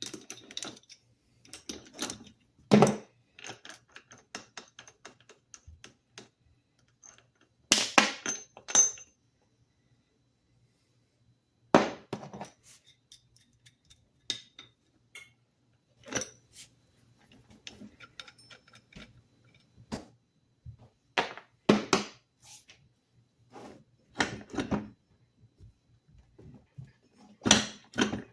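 Metal parts and hand tools clinking and knocking on a workbench: a scatter of separate clanks and clicks with short quiet gaps, several louder knocks among them.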